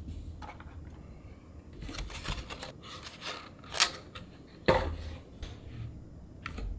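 Handling noises: scattered small clicks and scrapes, with two sharper knocks about four and five seconds in.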